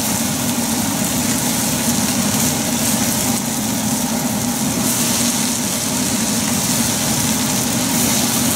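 Steady kitchen background noise at a gas stove: a constant mechanical hum with an even hiss over it, while rice is stir-fried in a pan.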